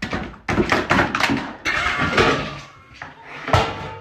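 Cats scuffling in a small bathroom: a rapid, irregular run of loud thuds and knocks that starts suddenly and dies down near the end.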